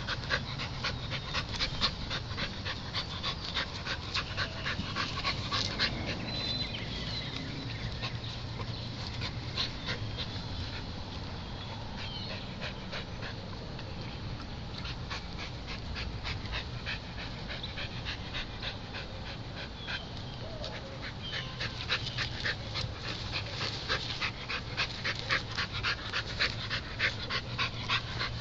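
A dog panting rapidly and rhythmically, heavier at the start and again in the last several seconds, lighter in between.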